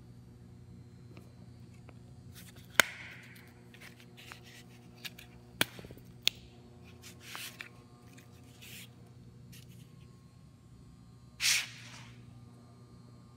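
A nylon Cor-Ex sword sheath with snap fasteners and a hard plastic tip being handled: three sharp clicks in the first half, then several brief brushing rustles, the loudest near the end, over a steady low hum.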